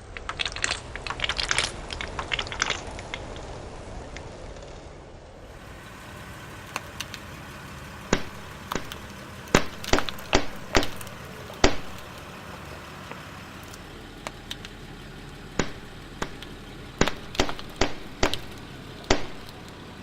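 A car tyre crushing brittle objects: a dense run of crackling crunches at first, then a series of separate sharp cracks and snaps, about a dozen, as more pieces break under the tyre's weight.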